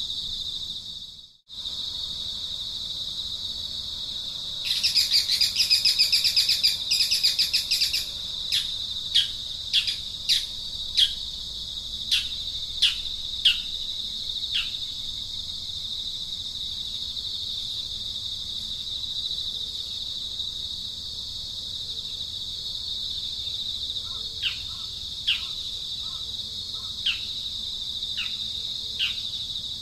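A steady high-pitched drone of insects, joined by a loud rattling buzz for about three seconds and then a string of short, downward-sliding bird calls, first in a quick run and again near the end. The sound cuts out briefly about a second in.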